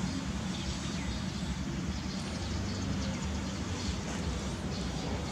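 Steady low outdoor background rumble with a few faint high chirps.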